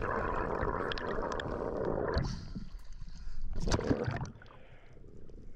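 Water sloshing and rushing as a freediver dives down from just under the surface, steady for about two seconds, then a quieter underwater hush with a short noise about three and a half seconds in.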